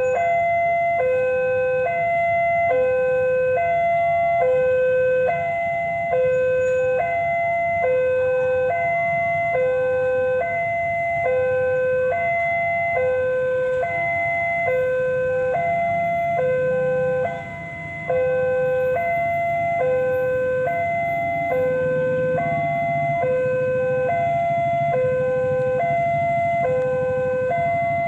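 Railway level crossing warning alarm sounding, an electronic two-tone signal alternating between a low and a high tone about once a second, warning that a train is approaching. In the second half the low rumble of the approaching diesel locomotive grows louder underneath it.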